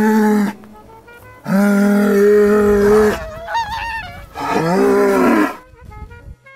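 Cattle mooing loudly: three long, steady calls, with a short wavering higher call between the second and third.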